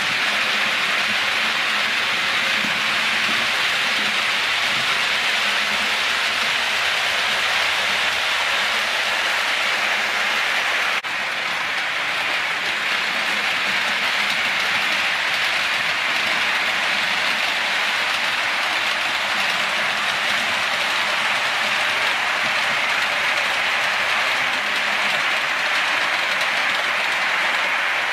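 Model trains running on the layout's track: a steady, even rolling hiss from wheels and motors, dropping slightly in level about eleven seconds in.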